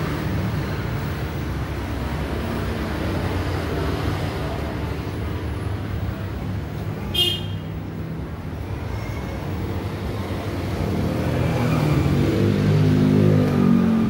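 Road traffic noise with a steady low rumble. A motor vehicle's engine grows louder in the last few seconds as it passes close by. There is a brief high squeak about seven seconds in.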